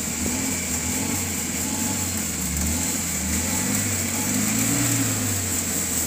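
Off-road SUV's engine working under load as the vehicle crawls up out of a ditch, its pitch rising and falling and climbing highest about three-quarters of the way through.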